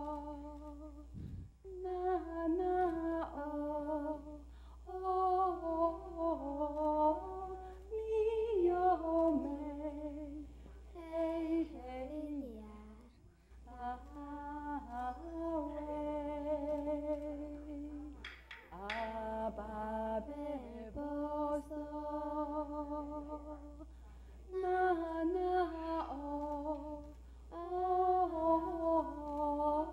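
A slow vocal melody, hummed or sung in phrases with short pauses, as part of a Taiwanese hand-puppet show's music.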